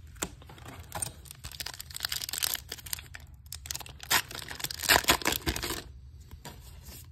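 A foil trading-card booster pack wrapper being crinkled and torn open by hand: a run of crackling rustles, loudest about four to five seconds in.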